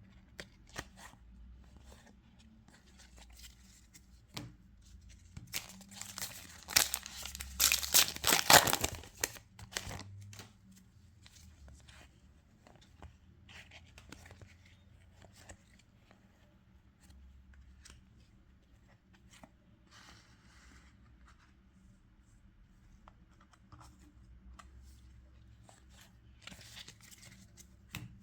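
Trading-card booster pack wrapper being torn open, loudest for a few seconds about a quarter of the way in. Quieter rustling and small clicks of the wrapper and cards being handled follow.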